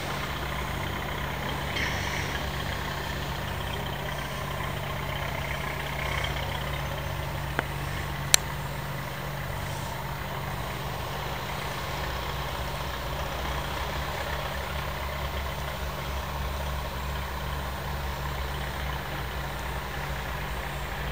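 Steady low rumble, with two sharp clicks close together about a third of the way in.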